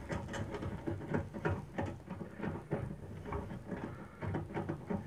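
Irregular small clicks, scrapes and rustles of a hand-held screwdriver and hands working out the mounting screws of a microwave oven's magnetron, metal on metal inside the oven's chassis.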